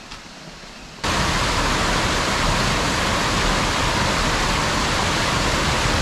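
Loud, steady rush of water spilling over a small weir in a concrete irrigation channel. It starts abruptly about a second in, after a much quieter first second.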